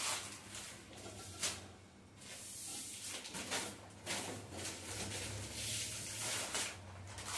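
Plastic grocery bags and food packets rustling and crinkling in irregular bursts as they are picked up and moved, over a steady low hum.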